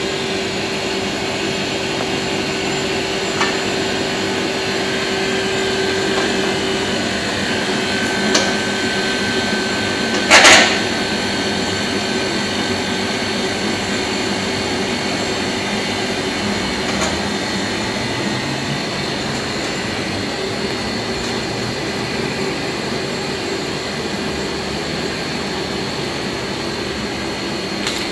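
Steady machine whir with a constant hum underneath, broken by a few light metal clicks and one loud, sharp metal clank about ten seconds in, from hand tools on the compressor unit's metal mounting.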